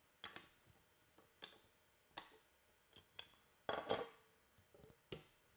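Light clicks and clinks of an AK-pattern rifle's gas tube and its railed upper cover knocking against the receiver and handguard as it is offered up and lifted off, a scattered handful of taps with the loudest cluster about four seconds in.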